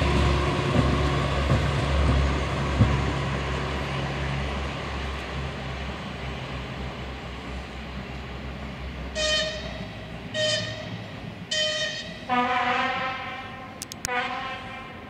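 Czechoslovak diesel locomotive T 499.0002 'Kyklop' approaching, its engine a low rumble that dies away, then its horn sounds three short toots about a second apart, followed by two longer, lower blasts.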